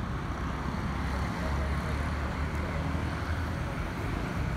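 Distant Boeing 737-800's CFM56 jet engines rumbling steadily overhead as the airliner climbs out after takeoff. The low rumble swells slightly after about a second.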